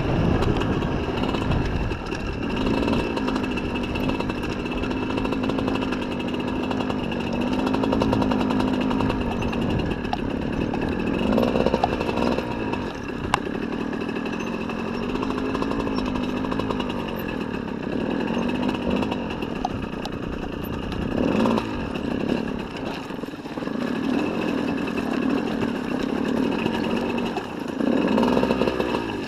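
Honda CR125's single-cylinder two-stroke engine running at low revs under light throttle, its pitch wavering as the throttle is worked. It picks up in short blips of the throttle about a third of the way in, about two-thirds in and near the end.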